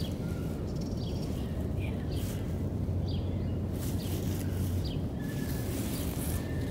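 Small birds chirping outdoors, short high notes that sweep downward, repeated every second or so over a steady low rumble.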